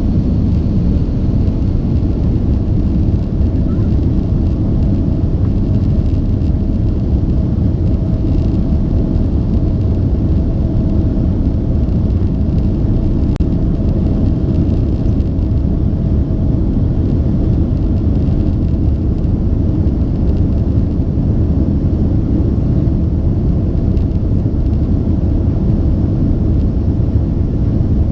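Boeing 767-400ER's jet engines and airflow heard from inside the passenger cabin: a loud, steady rumble with a faint, even hum running through it.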